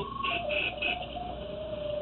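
Electronic tone from a sewer-camera sonde locator, a single steady pitch that steps down, wavers in small steps and climbs again near the end, tracking the signal from the camera head's transmitter.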